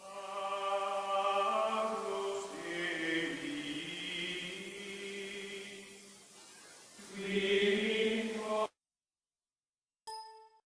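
Outro music of sustained choir-like chanting voices holding chords, swelling again shortly before it cuts off suddenly. After a pause, a short single tone sounds near the end.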